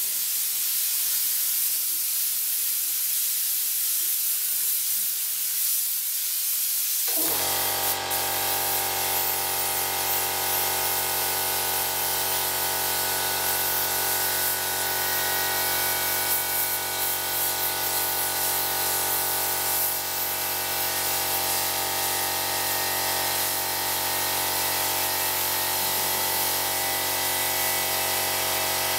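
Paint spray gun hissing steadily as it sprays white paint. About seven seconds in, the air compressor feeding it starts up and keeps running, a steady hum of several fixed tones under the hiss.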